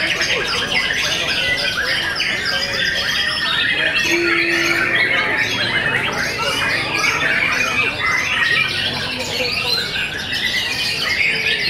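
Many white-rumped shamas singing at once, a dense overlapping chorus of fast whistled phrases, trills and chirps.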